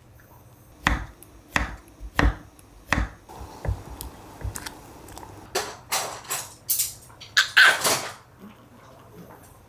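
Knife chopping potatoes on a wooden cutting board, about six strokes a little under a second apart, followed by a few sharper clattering knocks. Near the end a Pomeranian gives a short, high bark.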